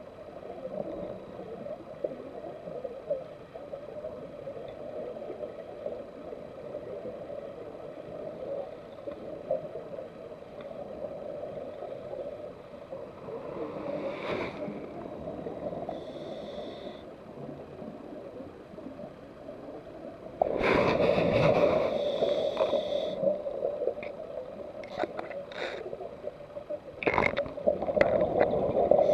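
Underwater sound picked up by a camera in its housing: a steady low hum, with a scuba diver's breathing through the regulator, a few short hisses midway, then a loud spell of exhaled bubbles about twenty seconds in and more bubble bursts near the end.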